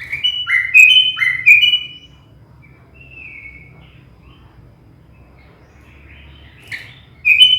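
Sooty-headed bulbul (kutilang) singing: four loud, quick phrases in the first two seconds, a softer note about three seconds in, and another loud burst near the end. It is a trained bird whose song is filled in with learned imitations of prinia and yellow-vented bulbul calls.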